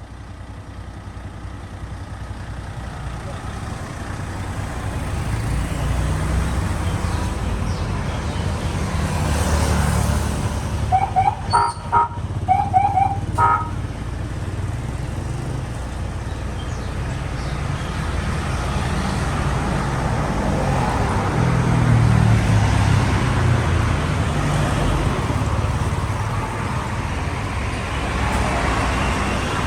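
A motor vehicle's engine running and growing steadily louder, with a quick series of short horn toots about eleven to thirteen seconds in.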